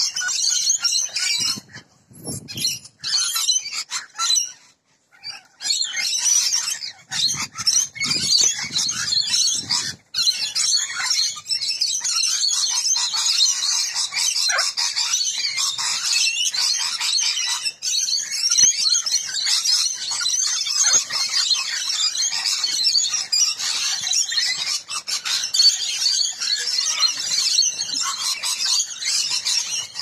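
A flock of rainbow lorikeets screeching and chattering together in a dense, high-pitched din, broken by a few short gaps in the first ten seconds.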